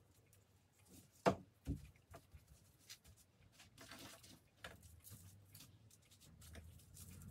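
Food-prep handling sounds: a knife knocks sharply twice on a cutting board about a second in, followed by lighter taps, clicks and rustling as sushi fillings are handled.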